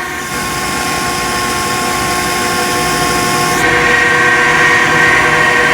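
An engine running steadily as a machine is edged a little further into position, with a high hiss over it that cuts off suddenly a little past halfway.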